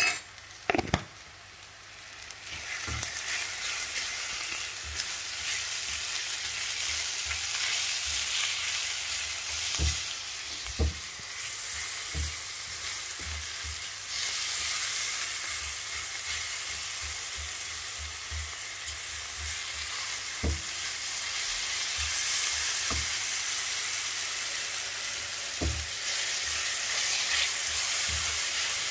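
Browned onions frying in oil in a pan, sizzling steadily while being stirred with a spatula. The sizzle grows louder about two seconds in, and the spatula knocks against the pan now and then.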